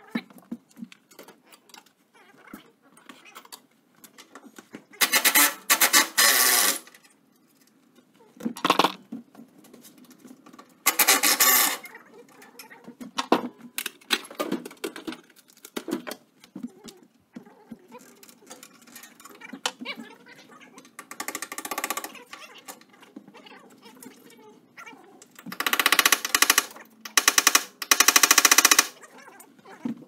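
A power tool rattling in several short bursts of rapid hammering, each a second or so long, between quieter clinks of metal. The work is on a seized, rusted skid steer.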